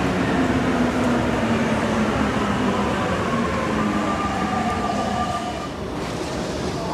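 Paris Métro Line 14 rubber-tyred train pulling in and braking to a stop. Its motors whine in several tones that fall steadily in pitch as it slows, over a running rumble, and the whine fades out near the end.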